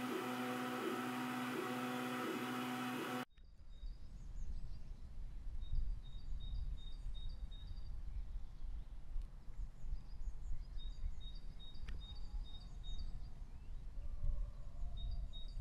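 A 3D printer lined with acoustic foam running: its fans and motors give a steady whir with several held tones, cut off suddenly about three seconds in. After that comes a low rumble with runs of short, high, evenly spaced chirps.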